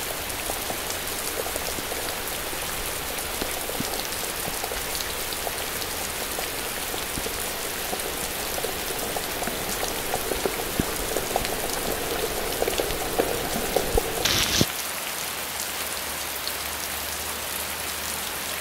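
Heavy rain with hail, a steady hiss of downpour with many sharp ticks of hailstones striking the wet ground and leaves. The ticks grow denser and louder through the middle, then stop abruptly about three-quarters of the way through, leaving a smoother rain hiss.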